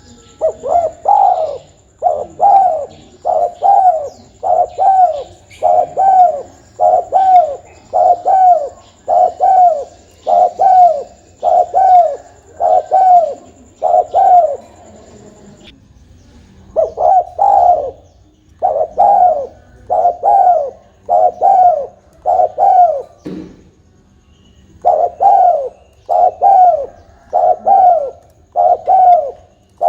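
Spotted dove (tekukur) cooing over and over, about one coo a second, with short breaks about 16 and 23 seconds in. This is a lure call for attracting wild doves.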